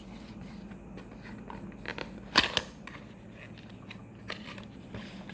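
Earbud box packaging being handled and opened: scattered small clicks and crinkles, with one sharp snap a little over two seconds in.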